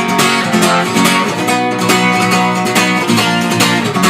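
Guitar strummed in the "gallop" strum, a quick repeating down-up-down pattern of chord strokes played at full tempo.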